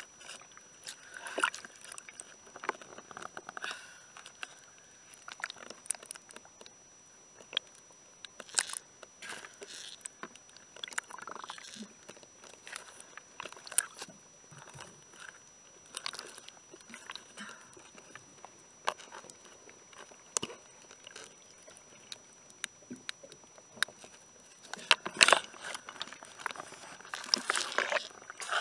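Underwater hull scrubbing heard through an underwater camera: irregular clicks, crackles and short scraping bursts, getting louder and denser near the end, over a faint steady high whine.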